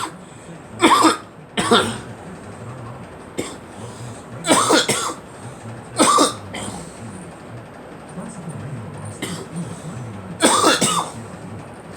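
A person coughing: about five coughs or short bouts of coughs, with pauses of one to four seconds between them.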